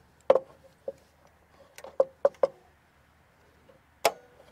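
A series of sharp metallic clicks and clanks, about seven in four seconds, with a brief ringing after the last: locking pliers (Vise-Grip) being set and clamped onto the bottom of the chainsaw mill's rail to hold the sled in place.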